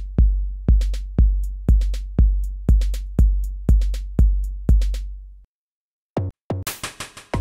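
Drum-machine beat from the Patterning iOS app: a deep, booming kick drum on every beat, about two a second, with sharp high ticks between the kicks. It dies away about five and a half seconds in, and after a brief gap a new, busier electronic beat starts.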